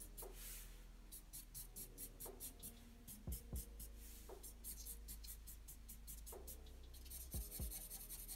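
Felt-tip marker scratching on paper in quick short hatching strokes, about five a second, merging into continuous scribbling near the end as an area is shaded dark.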